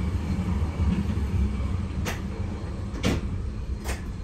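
Berlin U-Bahn F-type train running, heard from the driver's cab: a steady low rumble that slowly gets quieter, with three sharp clicks about a second apart in the second half.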